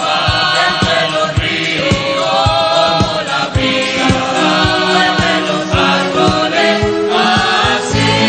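Background music: a choir singing held, hymn-like chords over a steady beat.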